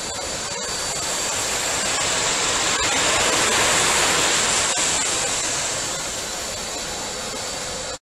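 Vacuum cleaner running, its rushing suction swelling as the nozzle is brought up to suck in a blowfly, then easing off again.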